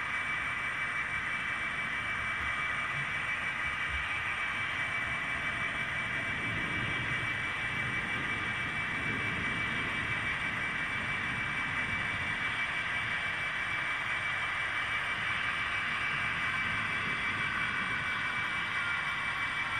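00 gauge model Class 66 locomotive running along the track: a steady high hum with a low rumble of wheels on the rails that grows from about six seconds in as it approaches.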